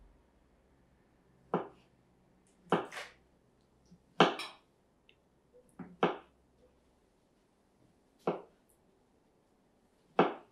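Kitchen knife slicing white mushrooms, the blade knocking sharply on the cutting board about eight times at an uneven pace, a second or two apart, some in quick pairs.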